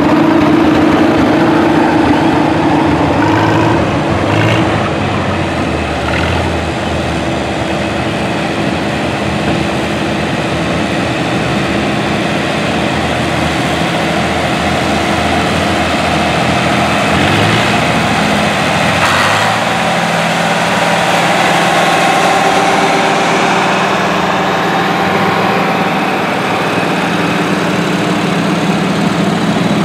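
Tractor engines running as parade tractors pass at low speed: a John Deere 4020 going by mid-way, then a small International Cub Cadet 582 garden tractor near the end. The engine sound is steady, its pitch changing gradually as one machine gives way to the next.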